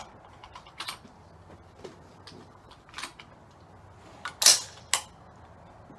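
A few sharp clicks and clinks of rifle cartridges and their box being handled on a shooting bench, with one much louder sharp crack about four and a half seconds in and another snap just after.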